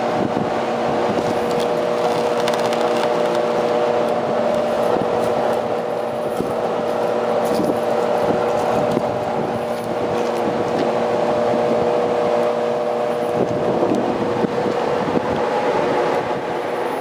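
Rooftop exhaust fans and ventilation units running, a steady drone with several held tones. Light metallic clicks and clatter come through as a metal flow-measurement grid is handled and slid into the exhaust fan's base.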